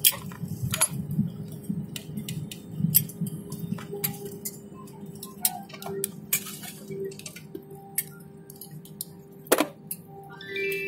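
Airliner cabin on the ground after landing: a steady low hum with a faint tone over it, and scattered sharp clicks and clinks throughout. Near the end comes a short rising sequence of beeps.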